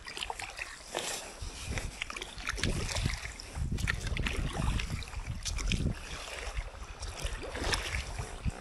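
Paddle strokes beside an inflatable canoe: the blade dipping and splashing in the water at an uneven pace, with wind rumbling on the microphone.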